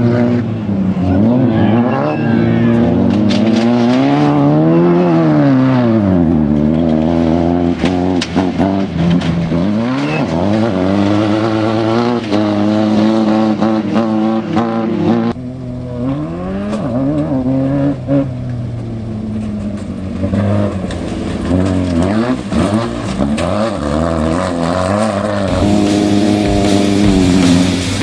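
Class 9 off-road race buggy's air-cooled Volkswagen engine revving hard under racing throttle, its pitch climbing and dropping again and again with throttle and gear changes. The engine sound changes abruptly about halfway through.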